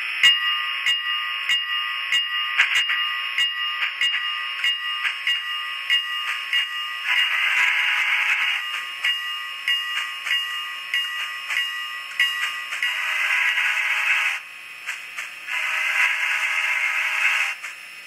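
Tinny onboard speaker of an N-scale steam locomotive's DCC sound decoder playing steam exhaust chuffs, a steady beat of about two a second, as the locomotive starts up and runs. Three longer sustained whistle blasts sound partway through, the last near the end.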